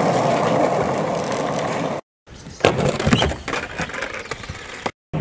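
A skateboard's wheels rolling on the skatepark surface as a rider falls off. After a brief cut there are several sharp knocks and clatters from the board and rider hitting the ground.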